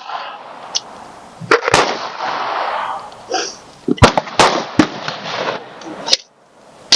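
Gunshots at a shooting range: several sharp reports at uneven intervals, a few close together around the middle and a couple near the end.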